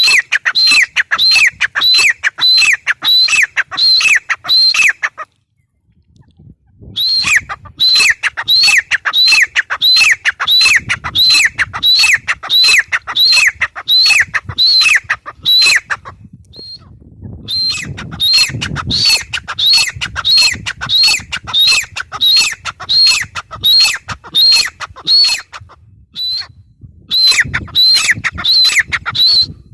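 Grey francolin calling: long runs of loud, shrill, repeated notes, about three a second. The runs break off briefly three times.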